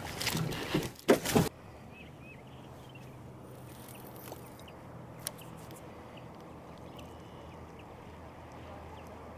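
A few loud knocks and rustles in the first second and a half, then the steady low hum of a boat motor.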